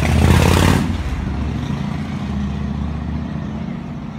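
A motor vehicle's engine running close by, with a brief hiss in the first second, then fading steadily away.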